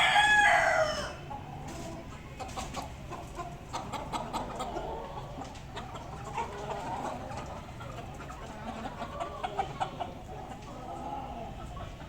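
A rooster's crow tails off about a second in, followed by chickens clucking softly on and off, with scattered sharp ticks.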